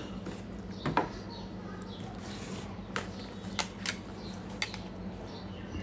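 A handful of short, sharp plastic clicks and knocks, spread over several seconds, as a handheld digital sound level meter is turned over and its battery compartment cover is opened. A faint steady low hum runs underneath.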